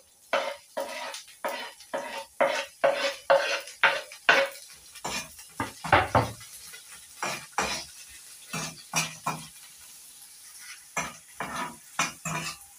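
Metal spoon tapping and scraping chopped spring onions off a wooden chopping board into a frying pan, about two knocks a second for the first few seconds, then irregular knocks and scrapes as the spoon stirs the onions in a little hot oil. A faint sizzle runs underneath, and after a short lull a few more knocks come near the end.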